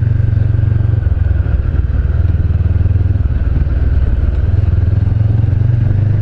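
2013 Honda CB500X's parallel-twin engine with a Staintune exhaust running steadily under way. Its note drops about a second in and rises again after about four and a half seconds.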